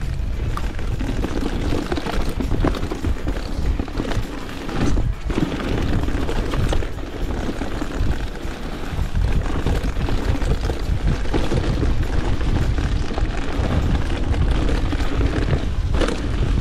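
Mountain bike riding down a rocky, rooty singletrack, heard through the camera mounted on the rider or bike: a steady low rumble of wind and tyre noise with irregular rattling and knocks as the bike and camera shake over the ground. A few harder knocks stand out, around five seconds in and near the end.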